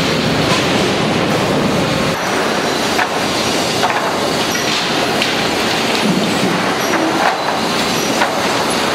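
Sawmill lumber-handling machinery running loudly: a steady mechanical din with scattered knocks and clatters as boards from a tilted lumber package drop and slide along a lugged chain decline conveyor. A low rumble drops away about two seconds in.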